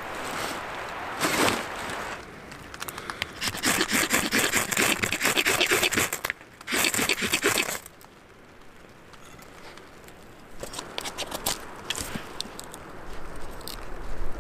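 A knife blade scrapes and shaves dry wood in quick, repeated strokes while kindling is prepared, with a loud scrape near the middle. After that it is quieter, with the faint crackle and ticking of small kindling catching fire.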